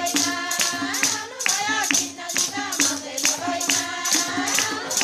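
Women singing a western Nepali Teej folk song in a group, over a shaken jingling percussion that keeps a steady beat.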